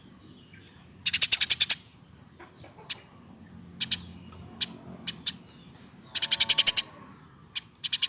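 An adult hand-raised Eurasian tree sparrow chirping: scattered single sharp chirps, broken twice by a fast rattling run of about ten notes, about a second in and again near the end.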